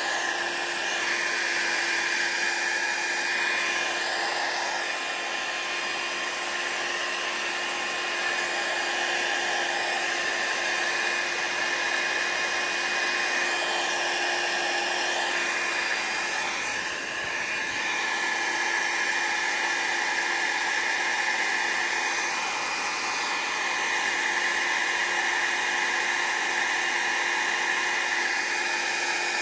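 Revlon 500-watt styling-brush hair dryer blowing steadily, a rush of air with a steady whine from its motor, dipping briefly about midway.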